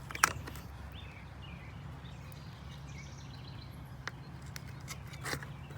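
A sharp click just after the start, then a few faint clicks from working a plastic wiring-harness connector off the Jeep's PCM by pushing down its locking tab and pulling back. A steady low hum runs underneath.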